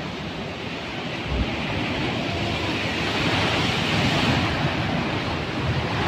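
Heavy surf breaking and washing against a rocky shore below a cliff, a steady roar of water that swells louder about halfway through.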